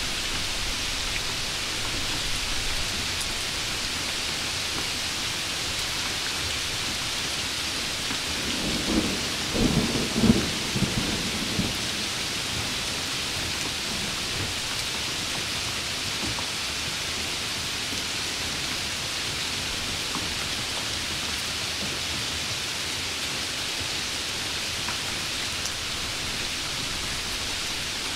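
Steady rain, with a low rumble of thunder near the middle that lasts a few seconds.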